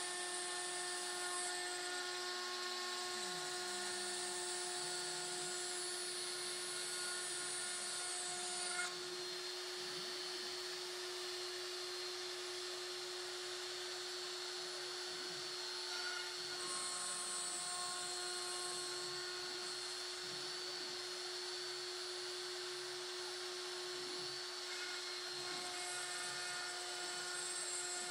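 Proxxon milling spindle on a homemade gantry CNC router running with a steady whine as its bit routes into a wooden board. Higher machine tones and a hiss shift and break off every few seconds as the cutter changes direction along the outline.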